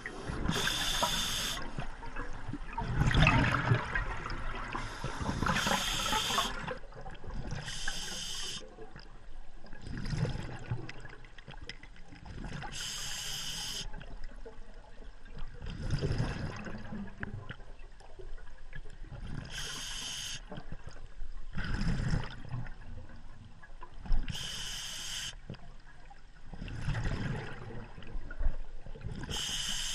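Scuba diver breathing underwater through an open-circuit regulator: a short hissing inhalation and then a rush of exhaust bubbles, the cycle repeating about every five to six seconds.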